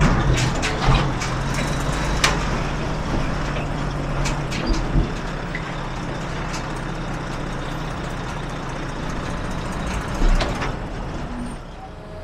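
Heavy diesel machinery running steadily, with a string of clanks and knocks in the first five seconds and another knock about ten seconds in.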